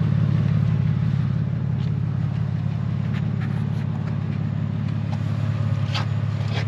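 Porsche 911 (996) flat-six engine idling steadily at operating temperature, its radiator cooling fans not yet switched on. A light click about six seconds in.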